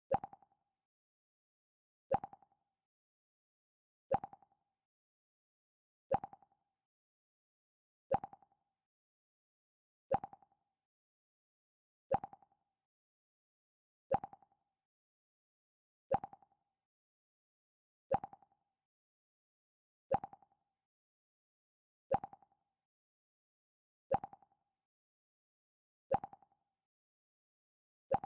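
Mac OS X "Pluck" alert sound played over and over: a short plucked note that dies away quickly, repeating about every two seconds.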